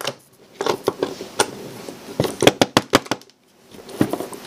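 Small metal planetary-gearbox parts, gears and loose steel balls, shaken and tipped out of an electric screwdriver's gearbox onto a table: a run of sharp metallic clicks and knocks, with a short lull near the end.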